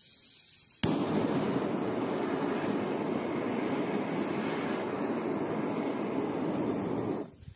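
Handheld gas blowtorch: a faint hiss of gas, a sharp click as it lights a little under a second in, then the flame burning with a steady rushing noise for about six seconds before it is shut off.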